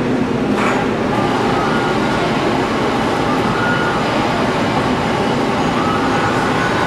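Metal-working machine tool running steadily in a machine shop, a constant dense mechanical noise with a faint whine and a brief click about half a second in.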